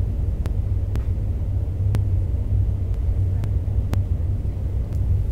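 Light ticks of a reflex hammer tapping the arm, about every half second to a second, over a steady low rumble in the room.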